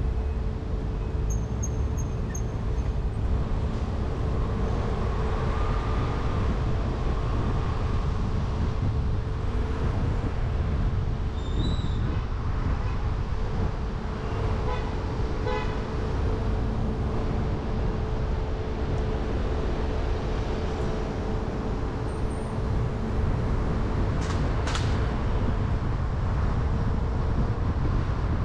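Road traffic: a steady low rumble of vehicle engines with a constant hum, a few faint short chirps and clicks over it.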